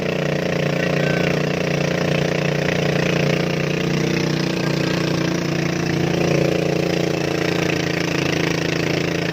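Engine of a motorized bangka running steadily under way, a constant drone with water hissing along the hull.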